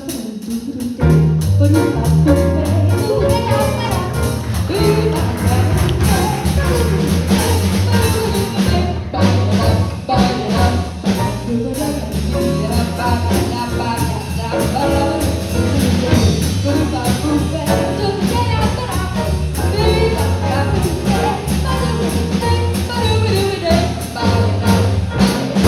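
Jazz band playing, with a stepping bass line under the ensemble and a steady beat from the drums.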